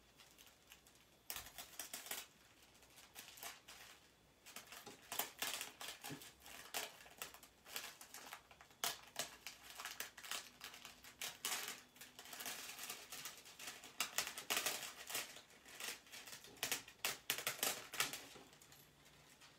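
Thin deco transfer foil crinkling and crackling as sheets are peeled off a heat-pressed design, in an irregular run of small crackles with louder snaps, starting about a second in.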